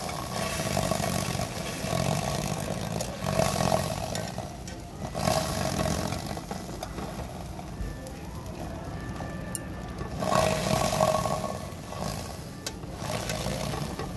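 A block of tofu dry-frying in a hot non-stick pan, vibrating against the pan with a rough buzz that swells and fades in bursts every few seconds, like a motorcycle engine being revved.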